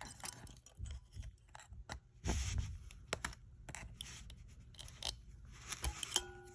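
Flat screwdriver scraping and clicking against a plastic airbag connector as it is slowly pried out of its housing: scattered light clicks and short scrapes, with a longer scratchy scrape about two and a half seconds in and a short squeak near the end.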